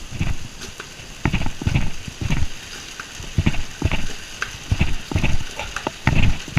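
About a dozen irregular knocks and clicks as minced garlic is added to onions cooking in a pan, the sound of a utensil knocking against the cookware.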